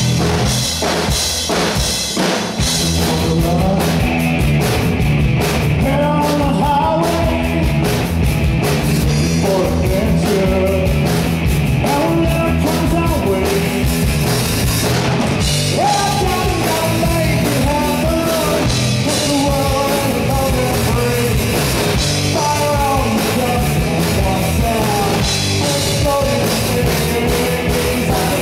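Live rock band playing: distorted electric guitars, bass guitar and a drum kit, with a male singer coming in through the PA a few seconds in.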